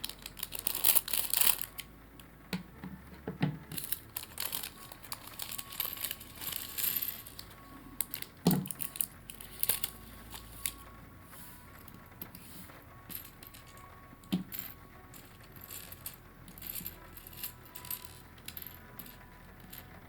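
Small plastic LEGO pieces clicking and clattering as they are sorted by hand. The clicks come in quick clusters in the first couple of seconds and again about six seconds in, then turn to scattered single clicks.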